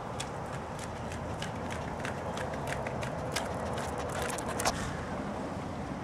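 A toy poodle puppy and its walker running on pavement: a quick run of sharp, light clicking steps that comes closest and loudest about four and a half seconds in, over a steady outdoor hum.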